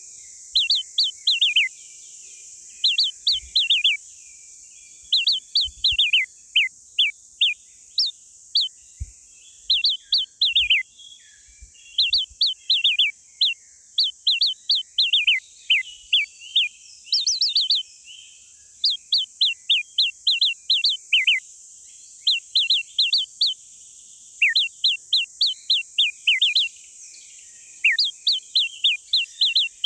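Small songbird chirping in quick runs of sharp, downward-sweeping notes, several notes to a run, repeated throughout with short gaps, over a steady high-pitched hiss.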